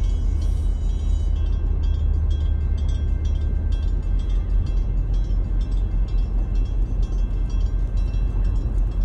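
Low, steady rumble of the articulated tug Clyde S. VanEnkevort's twin 5,400 hp MaK diesel engines driving the barge Erie Trader under way.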